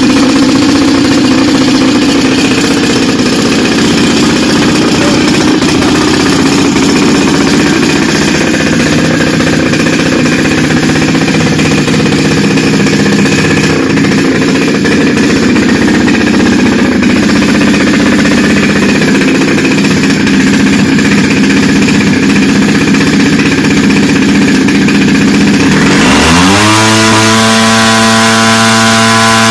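A fuel-burning propeller engine running loud and steady on a thrust stand. About 26 seconds in the sound changes to a clear pitch that rises quickly and then holds steady, like a motor spinning up to speed.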